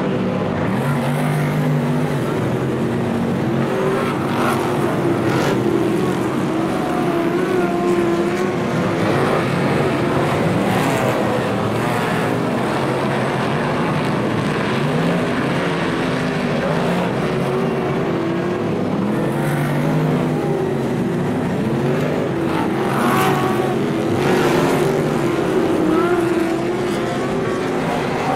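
A pack of superstock race cars' V8 engines running hard around a dirt speedway oval, several engines overlapping with their pitch rising and falling through the corners. The sound swells as cars pass close, once a few seconds in and again near the end.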